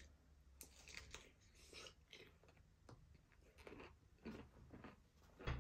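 Faint chewing: soft, irregular crunches and mouth sounds of a person eating.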